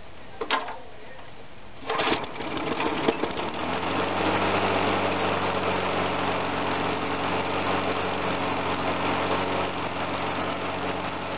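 Walk-behind lawn mower's small engine being pull-started. A short first pull comes about half a second in, and a second pull about two seconds in catches. The engine then runs steadily at speed.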